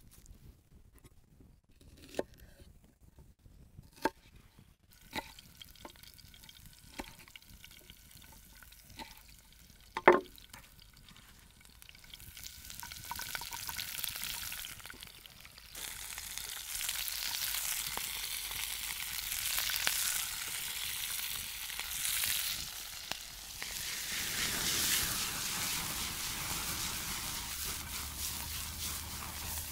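Green beans, onion and bell peppers sizzling in olive oil in a frying pan over an open fire, the sizzle starting a little under halfway through and quickly growing loud as the vegetables are stirred and tossed. Before that, a few separate knocks, the loudest about a third of the way in.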